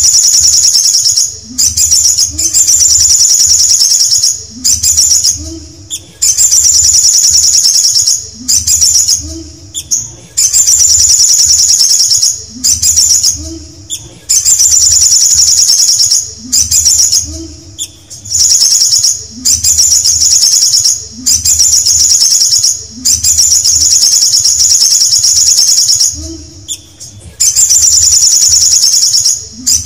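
Male olive-backed sunbird singing: rapid, high-pitched trilling phrases, each a second or two long, repeated more than a dozen times with short pauses between. Its wings flutter as it sings.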